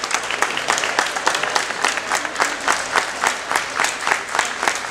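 Audience applauding, with sharp nearby claps standing out in a quick, even rhythm of about four or five a second.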